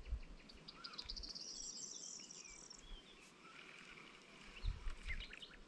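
Songbirds calling and singing, with scattered short chirps and whistles and a fast, high trill that runs for about two seconds from half a second in. A brief low rumble comes near the end.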